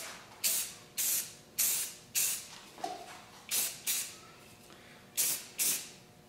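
Aerosol spray can of primer hissing in short bursts of under half a second each, about eight in all, with a pause of about a second past the middle.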